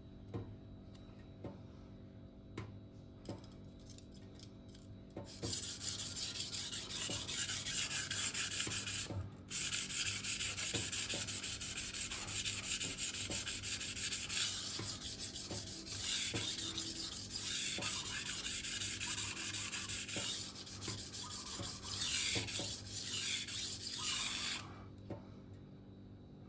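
Steel knife edge being stroked back and forth on the 1000-grit side of a vitrified diamond whetstone, making a steady gritty scraping hiss. It starts about five seconds in, breaks off briefly near nine seconds, and stops shortly before the end.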